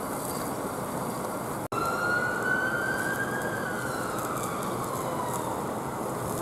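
Emergency vehicle siren giving one slow wail, rising in pitch and then falling away, over a steady rushing noise. The sound drops out for an instant just before the wail begins.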